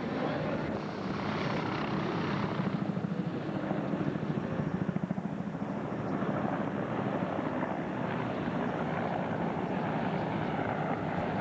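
Bell AH-1 Cobra attack helicopter flying past, its two-blade main rotor beating. The beat pulses hardest a few seconds in.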